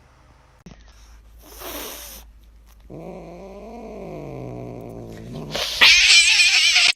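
A cat's long drawn-out yowl, nearly three seconds, rising and then falling in pitch. It is followed near the end by a louder harsh hissing noise that cuts off suddenly.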